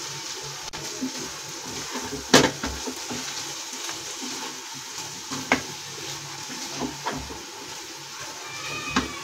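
Wooden spatula stirring a pan of spiced potatoes over a low gas flame, the potatoes sizzling softly, with four knocks of the spatula against the kadhai, the loudest about two seconds in.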